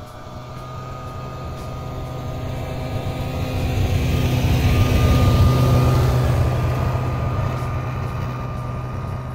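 Snowmobile's two-stroke engine running as the sled comes up the trail through the forest. Its steady drone grows louder to a peak about halfway through, then eases off a little.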